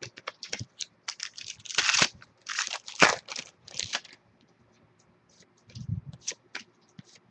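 Foil trading-card pack being torn open and crinkled: a quick run of crisp rips and rustles over the first four seconds, then a few light clicks and a short low sound around six seconds.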